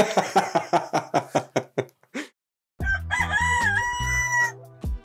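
A rapid run of short, evenly spaced sounds, then, about three seconds in, a rooster crowing: one held call that dips in pitch midway and rises again, with a steady low hum under it.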